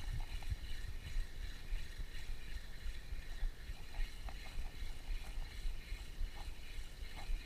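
Spinning reel being cranked to work a micro jig, a faint whir with light ticks from its gears, over a steady low rumble of wind and sea around the boat.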